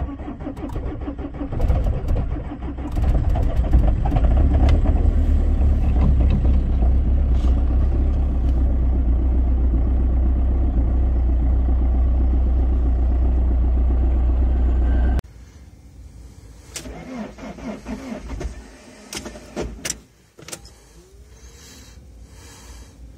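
Peugeot 206 2.0 HDi four-cylinder turbodiesel cold-starting at −15 °C after three glow cycles: the starter cranks briefly, the engine catches within about two seconds and settles into a loud, steady idle. About fifteen seconds in, the engine sound cuts off, leaving a much quieter stretch of scattered clicks and knocks.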